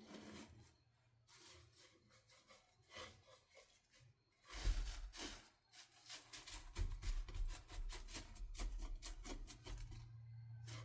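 Handling noises of a chicken feed bowl being dug out and filled: rustling, scraping and light knocks. These start about four and a half seconds in, after a nearly quiet start.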